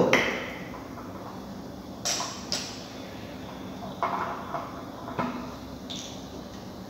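Laboratory glassware and a reagent bottle being handled on a bench: several separate light clicks and knocks.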